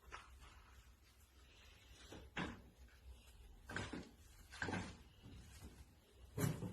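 Four short knocks or bumps, spaced a second or so apart, with the loudest one near the end.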